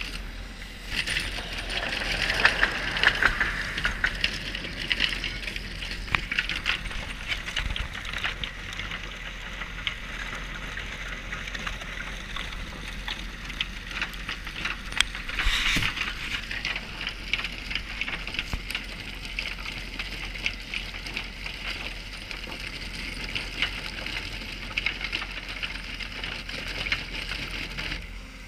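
Road-milling attachment on a JCB machine cold-milling asphalt: a dense, continuous crackle and clatter of the cutter chipping the surface and loose asphalt pieces rattling. It swells louder around three seconds in and again about halfway through.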